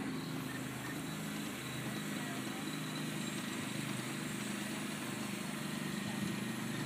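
A steady low mechanical hum, like an engine or machine running at a distance.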